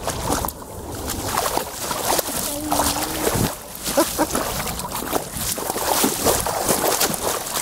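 Northern pike thrashing in shallow water as it is dragged ashore by hand: repeated splashing and sloshing.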